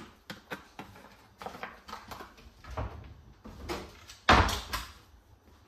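Kitchen handling noise: small knocks and clicks as a plastic cooking-oil bottle is capped and put down by the stove, with one louder thump about four seconds in.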